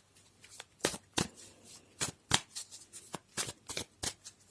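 Tarot cards being shuffled by hand: a run of short, crisp card slaps, about three a second at an uneven pace.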